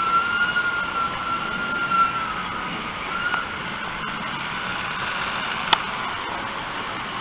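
Model train running on its track: a steady, slightly wavering motor whine over a rolling hiss, the whine fading about two and a half seconds in. A single sharp click comes near the end.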